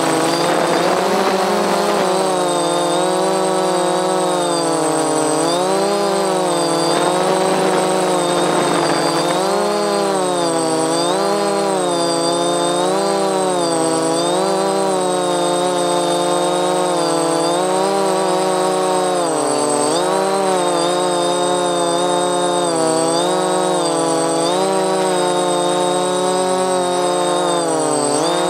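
DJI F450 quadcopter's brushless motors and 10-inch propellers buzzing in flight, heard from the camcorder strapped to the frame. The pitch wavers up and down every second or two as the motor speeds change. The motors are not yet balanced.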